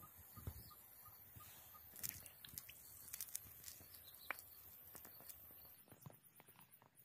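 Faint outdoor ambience with scattered sharp clicks, and a soft, regular ticking about three times a second in the first second or so.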